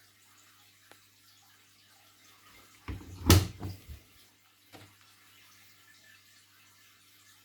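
A brief cluster of knocks and clatter about three seconds in, the loudest a sharp bang, with a smaller knock a second and a half later, over a faint steady hum.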